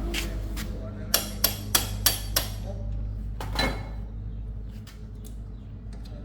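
Five quick sharp knocks, about three a second, over a steady low hum, then one more heavier knock about three and a half seconds in.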